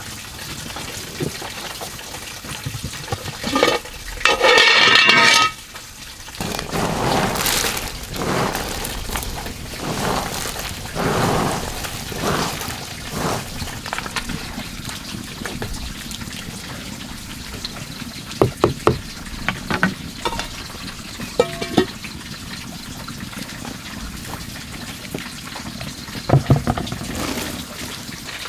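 Water running steadily, with the rustle and patter of chopped vegetables and bran being spread and mixed by hand on a woven bamboo tray. A brief loud rush about five seconds in, and scattered light knocks later on.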